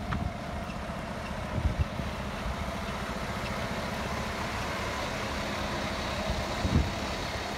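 Cat dump truck's diesel engine running with a steady low note as the truck pulls an end-dump trailer past. Two short low thumps come about two seconds in and near the end.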